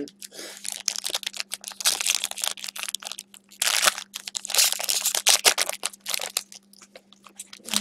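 Foil trading-card pack wrapper being torn open and crumpled by hand: irregular crinkling and crackling, over a faint steady low hum.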